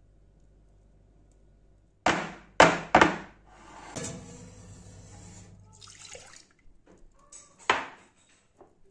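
Glass baking dish full of cake batter knocked against a countertop three times in quick succession, then a rough sliding rustle, and another loud knock near the end.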